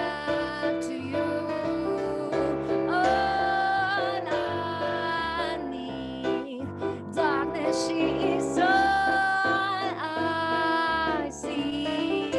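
A woman singing a jazzy melody with long held, wavering notes, accompanied by chords on an electric stage piano.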